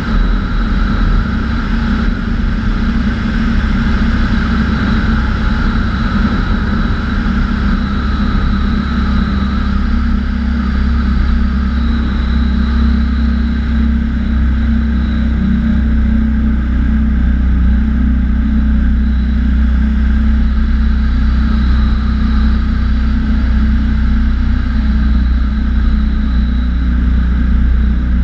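Bautek Skycruiser microlight trike's engine and pusher propeller running steadily in level flight, a continuous drone mixed with rushing air.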